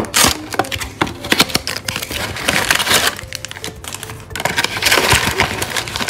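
Hands tearing open a thin cardboard toy box: repeated cracks and ripping of the card as the flaps are pulled apart, with two longer tearing stretches, one in the middle and one near the end.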